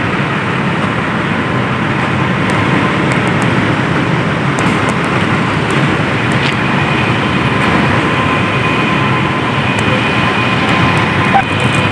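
Intercity bus's diesel engine running steadily close by, with a faint high whine.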